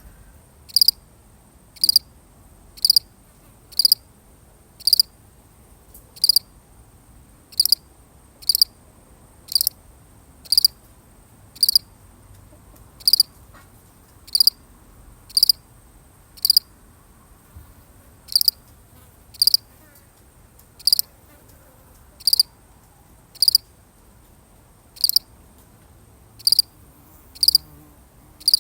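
A single cricket chirping: short, high chirps at roughly one a second, with a pause of a couple of seconds partway through.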